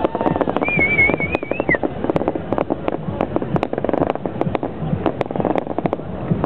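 Fireworks crackling: a dense run of sharp pops and cracks at an uneven rate. About a second in, a brief warbling whistle rises and falls.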